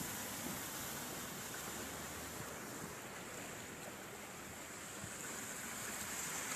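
Heavy monsoon rain pouring down in a steady, dense hiss, with water running over a flooded road.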